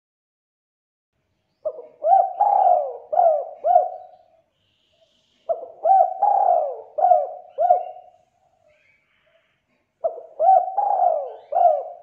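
Spotted dove (tekukur) cooing: three phrases of several quick coos each, starting about four seconds apart, with silence between. Each phrase has one longer, falling coo near its start.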